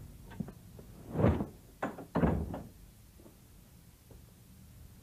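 A room door being opened and shut: a short run of thuds and knocks about a second to two and a half seconds in, the loudest near the end of the run.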